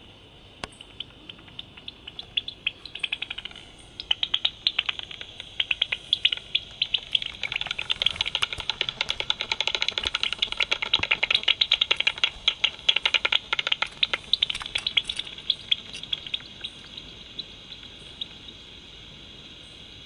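Bats' echolocation calls made audible through a bat detector: a steady hiss full of rapid clicks that thicken into a dense crackle in the middle and thin out near the end.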